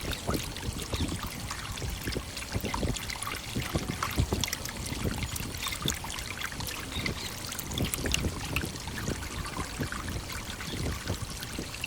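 Waterfall running steadily: falling water splashing, with many small irregular splashes over a continuous rush.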